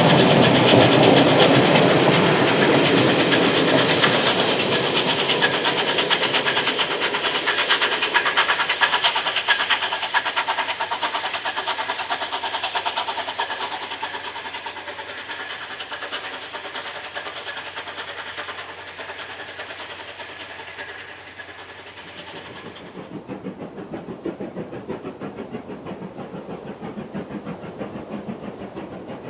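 Steam locomotive working hard up a gradient, its exhaust beating in a fast, steady rhythm with hissing steam, loud at first and fading as it draws away. About 23 seconds in, the sound changes abruptly to a quieter, duller exhaust beat.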